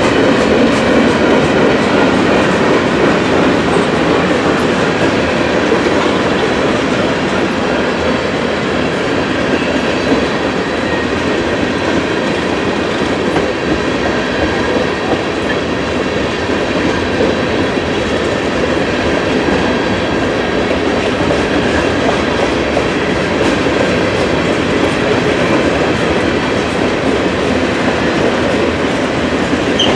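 Freight train cars rolling past close by: a loud, steady rumble and clatter of steel wheels on the rails.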